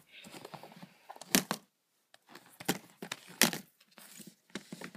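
Handling noise: a series of sharp clicks and knocks as hard objects, plastic game cases and a box, are moved about right next to the recording device. The two loudest knocks come about a second and a half in and just past three seconds.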